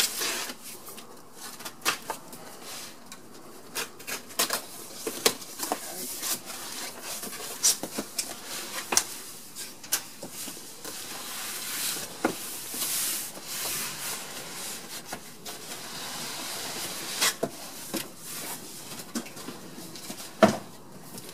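Cardboard shipping box being unpacked: a box cutter slitting packing tape, flaps folding open, and cardboard scraping and rubbing as the inner box is handled, with scattered knocks and a sharp thump near the end.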